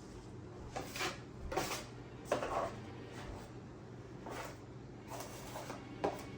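Irregular scrapes and knocks of hands-on drywall patching work: drywall pieces and tools being handled, scraped and cut, with about eight short sounds, the longest a couple of seconds in.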